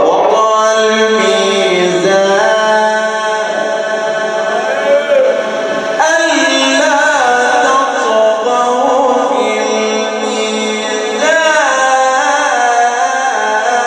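A man's voice reciting the Quran in the melodic mujawwad style, holding long drawn-out notes with wavering ornaments and fresh phrases starting about 2, 6 and 11 seconds in.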